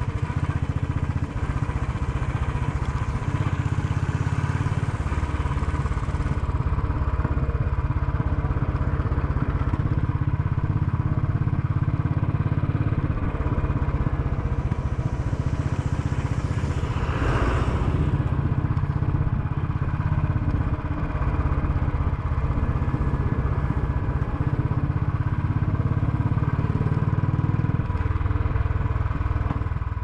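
Royal Enfield single-cylinder motorcycle running under way in traffic, its exhaust note steady and low. A brief rushing noise rises and falls about halfway through.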